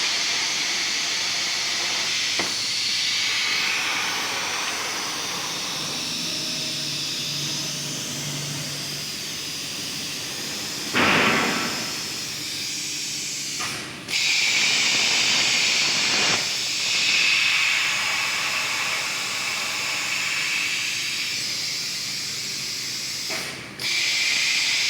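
CNC plasma cutter torch hissing steadily as it cuts 1.5 mm sheet steel. A short louder burst comes near the middle, and twice the hiss stops briefly and starts again abruptly.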